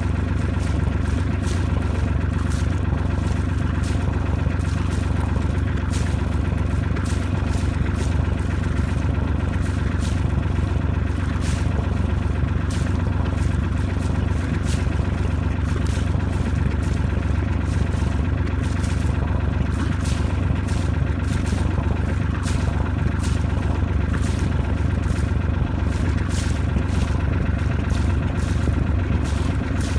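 A boat's engine running steadily at an even speed, a low drone with many steady tones above it and light irregular clicking over the top.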